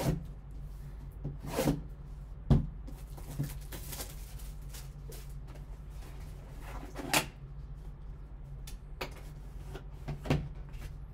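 Handling noise as a cardboard card box and its lid are picked up, closed and set down: a handful of scattered knocks and scuffs over a steady low hum.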